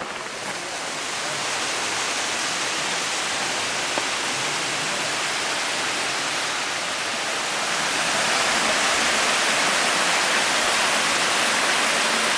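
Rushing water of a small stream tumbling over rocks in little cascades: a steady hiss that grows louder about eight seconds in.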